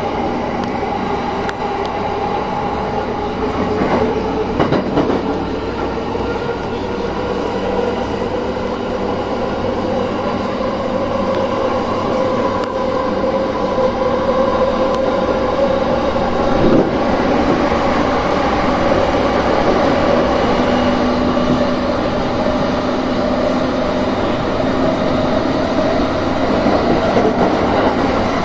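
Inside a JR Sobu Rapid Line E217-series electric train picking up speed: a motor whine slowly rises in pitch over the steady rumble of wheels on rail, with a few knocks, gradually getting louder.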